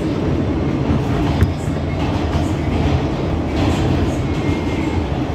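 R160B subway car running at speed, heard from inside the car: a loud, steady rumble of wheels on rails, with one sharp click about a second and a half in.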